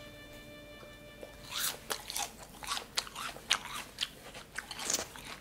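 Close crunching as someone chews a mouthful of crisp stonecrop and julienned apple salad: irregular crunches, two or three a second, starting about a second and a half in.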